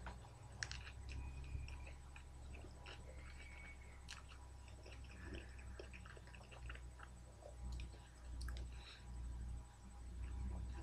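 Faint chewing of a mouthful of lamb yiros, with scattered small clicks and wet squishes as fingers pick at the pita wrap, over a steady low hum.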